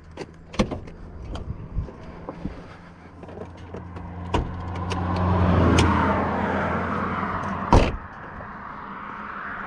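Car door latch clicking open, a few small clicks and knocks, then the door shut with a single loud thud about eight seconds in. In the middle a passing vehicle swells and fades, over a low steady hum.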